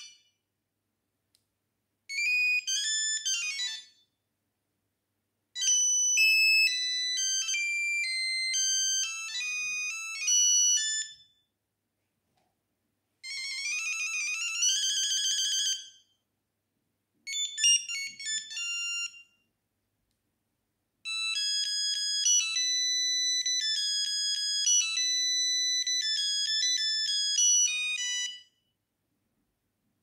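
Sony Ericsson T68i mobile phone playing five of its built-in ringtones one after another through its small speaker: short, high-pitched electronic melodies of a few seconds each, separated by brief pauses.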